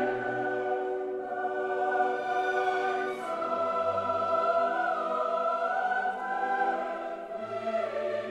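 Background choral music: voices holding long, sustained notes that change pitch slowly.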